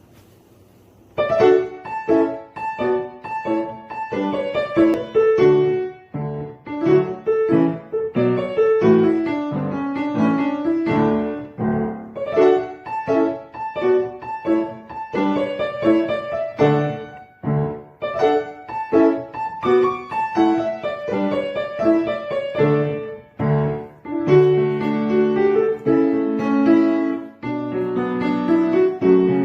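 Piano music: a quick, bouncy melody of many short notes over a lower accompaniment, starting about a second in.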